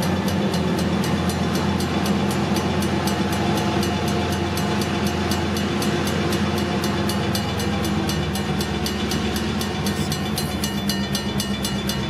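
Diesel locomotives running at a grade crossing, a steady low drone. Over it the crossing signal bell rings steadily, about five strikes a second.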